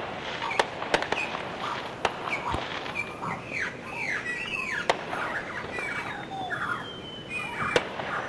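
Sharp pops or cracks at irregular intervals over a clutter of short chirps that drop in pitch. A thin high tone slides slowly downward in the last couple of seconds.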